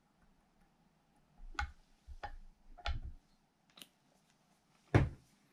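Small tools being handled and set down on a fly-tying bench: a handful of light, separate clicks and taps, then a louder knock about five seconds in.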